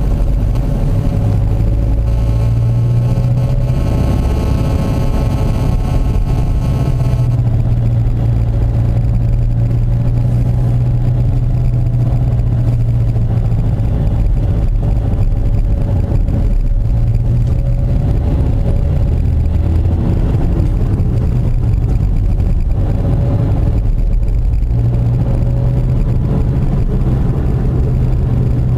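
Car engine and tyre noise heard from inside the cabin while driving, a steady low drone that rises and falls slightly with engine speed.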